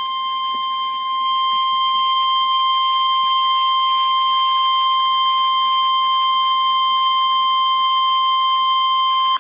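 Emergency Alert System attention signal: the 1050 Hz single-tone alert of NOAA Weather Radio, one steady, shrill beep that gets a little louder about a second in and cuts off suddenly near the end. It announces a tornado warning.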